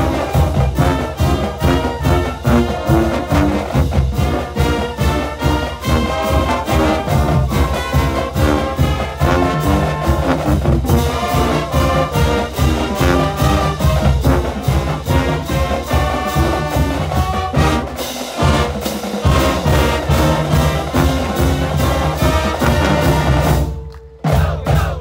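Marching band playing live: flutes, saxophones and brass over a steady beat. The music breaks off abruptly for a moment near the end.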